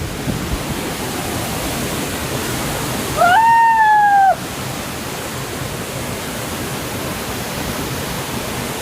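Steady rushing of a waterfall. About three seconds in comes one loud, high-pitched call lasting about a second, rising at the start, then holding and sagging slightly.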